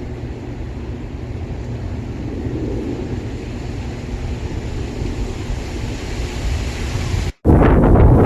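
Strong wind blowing and buffeting the microphone, a steady low rumble. Near the end it cuts out for a moment and comes back louder and gustier.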